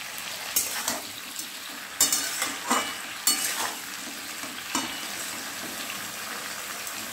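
Sliced onions and green capsicum frying in oil in a steel wok, a steady sizzle, with several scraping strokes of the spatula against the pan in the first five seconds as they are stirred.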